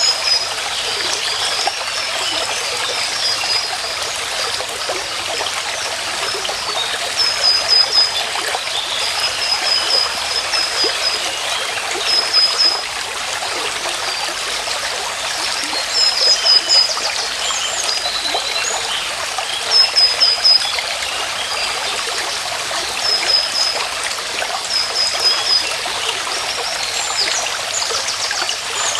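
Running water of a small stream, with a bird repeatedly calling short, quick runs of high notes every few seconds.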